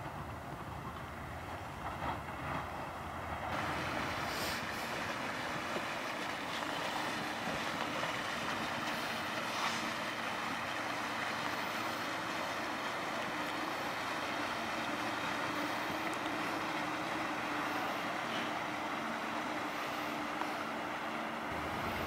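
Steady boat engine noise with a faint low hum, under wind rushing on the microphone.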